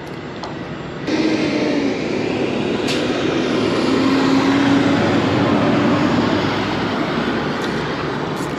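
A heavy vehicle's engine running: a steady loud noise that comes in about a second in, with a low hum that drops slightly in pitch partway through.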